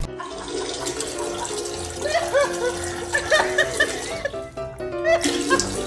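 Background music with held notes, with short squeaky rising-and-falling sounds over it around the middle.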